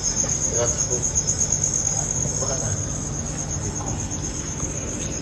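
Crickets chirping in a continuous high, rapidly pulsing trill over a steady low hum, with a faint voice in the background.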